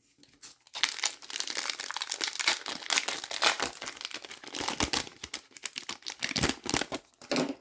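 Hockey card pack wrapper crinkling and tearing as it is ripped open and handled, a dense continuous crackle that runs several seconds.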